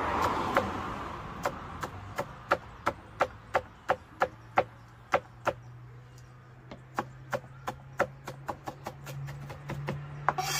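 Kitchen knife chopping vegetables on a plastic cutting board: a steady run of sharp knocks, about three a second, that pauses briefly past the middle and quickens near the end. A faint low steady hum sits under it from about halfway.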